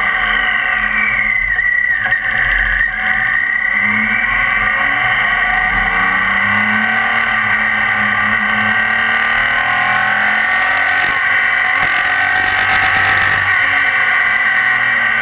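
BMW K 1600 GTL's inline-six engine running under way, its pitch falling and rising with the throttle in the first few seconds, then holding steady.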